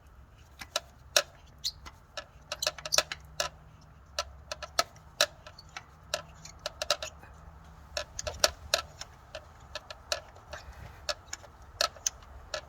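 Ratchet wrench on a spark plug socket clicking in uneven runs of sharp ticks while backing a loosened spark plug out of the cylinder head.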